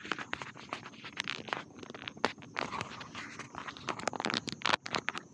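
Handling noise from fingers rubbing and tapping on a small action camera right at its microphone: a rapid, irregular run of scrapes and clicks that stops near the end. Crickets chirp steadily behind it.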